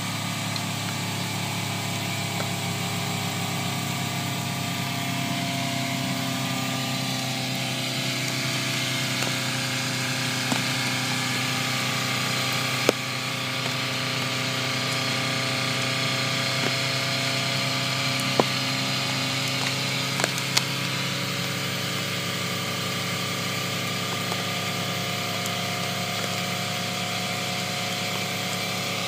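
Hydraulic rock splitter working: the engine-driven hydraulic power unit runs steadily while the splitter's wedge forces the rock apart, with several sharp single cracks from the splitting rock in the middle of the stretch.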